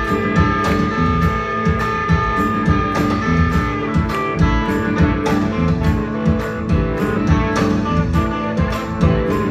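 Live Tuareg desert-blues band playing: electric guitars and bass over a steady hand-drum beat.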